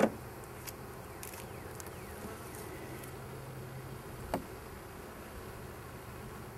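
Honeybees buzzing around a hive, with a steady low drone from one passing close to the microphone. There is a sharp knock at the very start and a softer knock about four seconds in.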